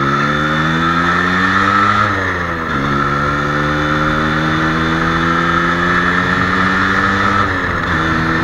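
Yamaha RXZ two-stroke single-cylinder engine pulling under acceleration while riding. The engine note climbs, drops sharply about two and a half seconds in as a gear is shifted up, then climbs again to a second upshift near the end.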